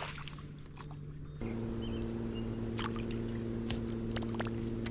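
Light clicks over a soft hiss, then from about a second and a half in a steady low hum of several pitches together, with a few more scattered clicks and faint bird chirps.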